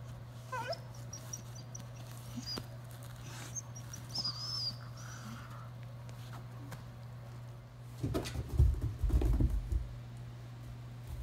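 A Doberman puppy's plush rope squeaky toy giving short high squeaks and a wavering squeal as he mouths it. Near the end come louder low dull thumps as the puppy climbs carpeted stairs.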